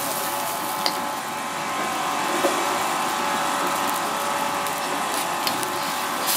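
Steady whirring kitchen noise with a few short clinks of a metal ladle against a wok as curry is stirred.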